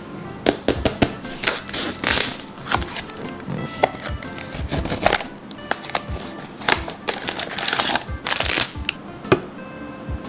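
Unboxing handling sounds: packaging rustling in short bursts and many sharp taps and clicks, over soft background music.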